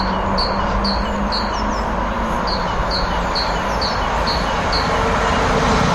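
A small bird repeating a short, high chirp about twice a second, with a pause near the middle, over the steady low rumble of an approaching electric multiple unit. A steady whine comes in near the end as a London Midland Class 350 Desiro draws nearer.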